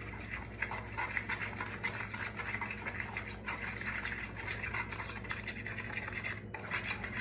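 Whisk beating a liquid dressing of oil, vinegar, sugar and ramen seasoning in a bowl: quick, continuous strokes, scraping and ticking against the bowl.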